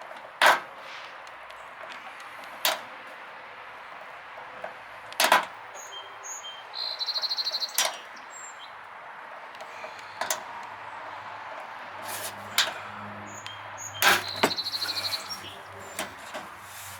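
Hand rivet gun working rivets into a metal downspout: a series of sharp single snaps every two or three seconds, with two short rattling runs of quick clicks, once about seven seconds in and again near the end.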